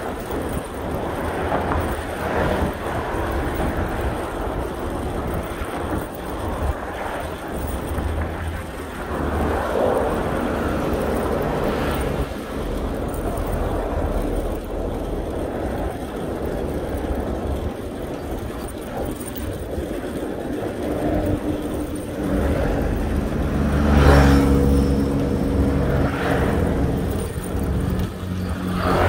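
Urban road traffic: cars passing on the road with a steady rush of noise, and a motor vehicle's engine running close by from about two-thirds of the way through, loudest shortly after it comes in.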